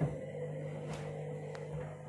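Candy front-loading washing machine tumbling a wash on its mats cycle: a steady motor hum with a couple of faint knocks from the drum.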